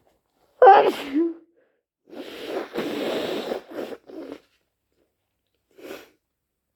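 A person with a head cold: one loud, wet sneeze about half a second in, then a rasping nose blow lasting about two seconds, followed by two short sniffs.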